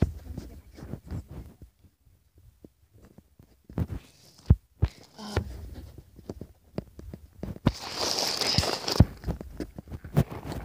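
Handling noise from a handheld tablet with footsteps while walking on a steep trail: irregular soft thumps and knocks, with a longer stretch of rustling about eight seconds in.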